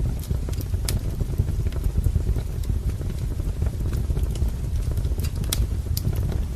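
Firewood burning in a fireplace: scattered sharp pops and snaps over a steady low rumble of the flames.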